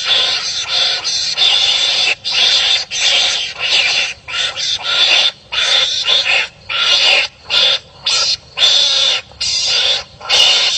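Harsh, noisy animal calls in quick succession, short cries separated by brief gaps: animals barking at each other in a fight.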